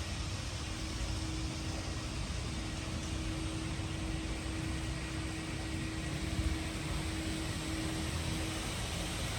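Steady running of a 1JZ-GTE twin-turbo inline-six engine, a constant hiss over a low rumble with a steady hum that does not change pitch.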